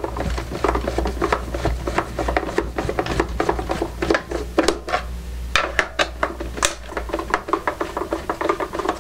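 Rapid, irregular clicking and rattling of a plastic boombox case and its small screws being handled and worked out, with a steady low hum underneath until about seven seconds in.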